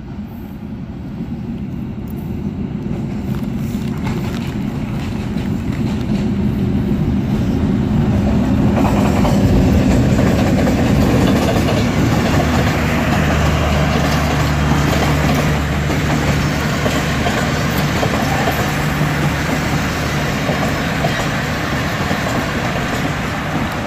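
Pakistan Railways GE U20C (GEU-20 class) diesel-electric locomotive hauling an express train past, growing louder as it approaches and loudest about ten seconds in. A low steady engine drone follows as the locomotive goes by, then the coaches roll past with a continuous rumble.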